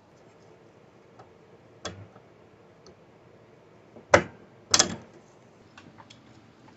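Scattered clicks and knocks from small parts being handled during a Glowforge carriage belt repair, with two louder knocks about four and five seconds in.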